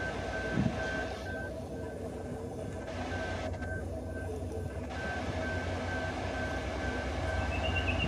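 Level crossing warning bell ringing in a steady repeating beat, about two strokes a second, over the low rumble of an approaching diesel locomotive hauling a coal train, which grows slowly louder.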